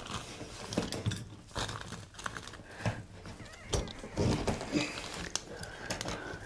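Metal ceiling-fan brace bar being worked up through a hole in the drywall ceiling, giving irregular clicks, knocks and scrapes with rustling in between.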